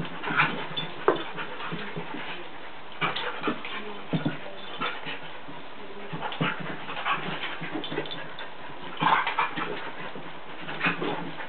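A Jack Russell terrier and a collie play-fighting, making short dog vocal sounds in irregular bursts, with the loudest about a second in and around nine seconds in.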